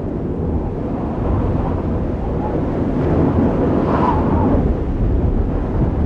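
Storm sound effect: a steady low rumble of wind noise that slowly builds, with a whistling howl that rises and falls about four seconds in.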